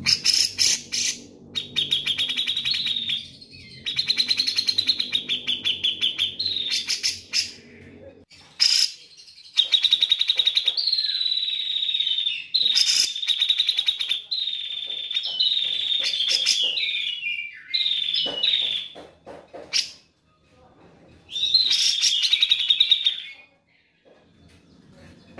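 Grey-cheeked bulbul (cucak jenggot) singing: a string of rapid, chattering phrases, each about one to three seconds long, with short pauses between them.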